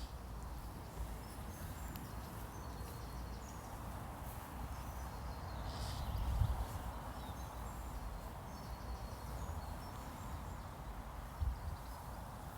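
Outdoor nature ambience: a steady background rush with a low rumble, and faint, short high bird chirps scattered throughout.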